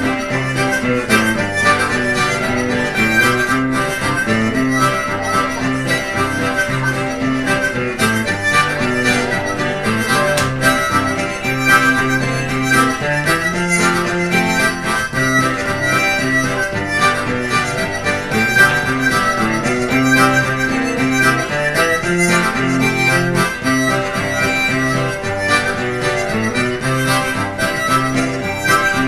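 Harmonica playing a traditional reel, with acoustic guitar accompaniment underneath.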